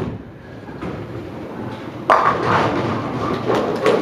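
Tenpin bowling ball rolling down the lane, then crashing into the pins about two seconds in for a strike, the pins clattering as they fall.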